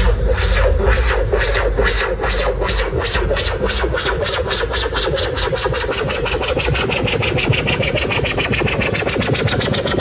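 Electronic dance music played loud through a large DJ loudspeaker set-up, in a build-up: a repeating hit speeds up steadily from about two to about eight a second over a rising sweep, while the heavy bass drops away after the first seconds.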